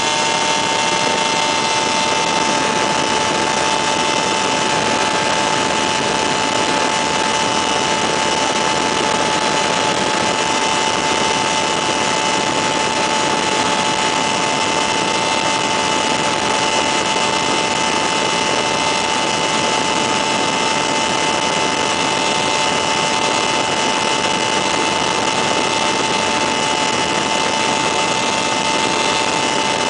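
Weedhopper ultralight's two-stroke engine and propeller running at a steady cruise setting in flight, a constant drone heard from the open pilot's seat.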